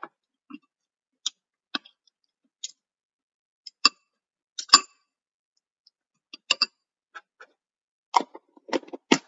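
Metal spoon clicking and tapping against a plastic food tub while eating: a series of irregular sharp clicks, the loudest about halfway through and a quick cluster near the end.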